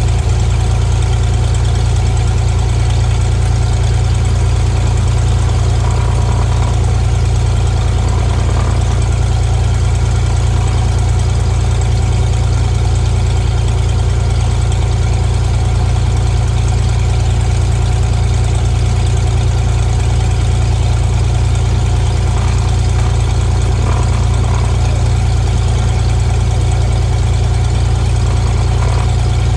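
Cessna RG light aircraft's piston engine and propeller running with a steady, loud, low drone that holds unchanged throughout.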